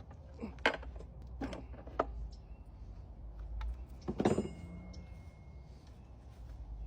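Scattered metallic clicks and knocks of tools and parts being handled on an opened manual gearbox, with a louder clunk about four seconds in that leaves a brief ringing tone.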